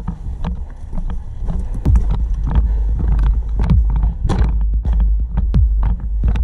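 Footsteps and gear knocking in an uneven rhythm of about two to three a second, over a steady low rumble of wind and handling on a body-worn action camera's microphone.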